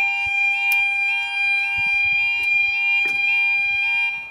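Level crossing audible warning alarm sounding: a steady high tone with a short rising yelp repeated about twice a second over it, cutting off suddenly about four seconds in. The alarm is faulty, which the uploader calls broken.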